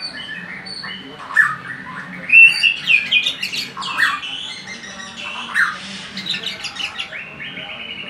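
A caged white-rumped shama (murai batu) singing a long, varied song of whistles and quick chattering notes, loudest about two and a half seconds in.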